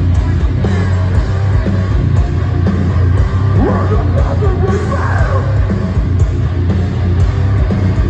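Live heavy deathcore band playing loud, with down-tuned distorted guitars, bass and pounding drums under a harsh yelled vocal, heard as a loud, bass-heavy phone recording from the crowd.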